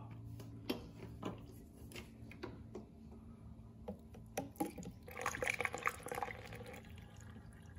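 Plastic diesel exhaust fluid jug and its flexible spout knocking and rattling against a funnel, then the fluid starting to pour into the funnel in quick gurgles for a second or so, about five seconds in. A low steady hum runs underneath.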